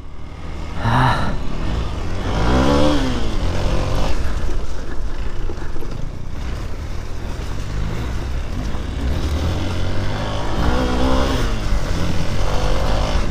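Dirt bike engine running at low speed on a trail, heard from the rider's helmet camera with wind on the microphone. The engine note rises and falls briefly about three seconds in and again near the end.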